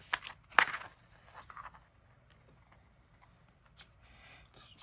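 Small handling sounds of a CD booklet and case: a sharp click about half a second in, a few light ticks, then faint paper rustling of pages being turned near the end.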